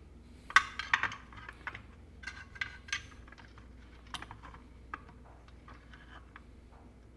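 Light, irregular clicks and clatter of small plastic and metal parts being handled on a workbench, as a panel-mount USB-C extension plug is readied to fit into the node's enclosure.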